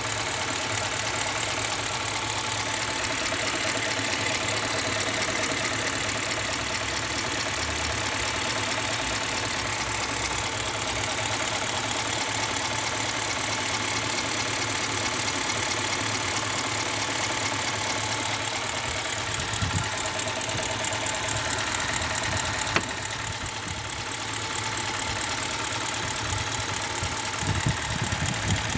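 Audi A8 4.0 TFSI twin-turbo V8 idling steadily and making an unusual noise that the owner calls strange. A single sharp click comes about three-quarters of the way through, after which the sound is briefly a little quieter.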